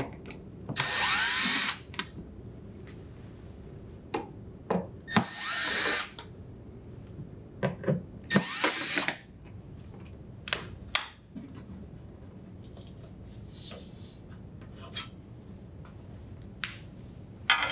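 Cordless drill driver with a Phillips bit running in three short bursts, each backing out one of the three screws holding a refrigerator's metal back panel, followed by a few light clicks and knocks.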